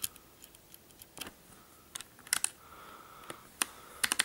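Das Keyboard Professional Model S keys with clicky Cherry MX Blue switches being pressed: a few scattered sharp clicks, then a quick run of clicks near the end.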